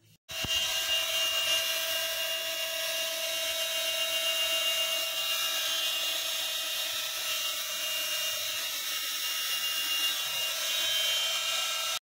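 Washing-machine electric motor running at high speed: a steady whine with several whistling tones, the noise of its dry bearings, which the owner sets out to cure by oiling them.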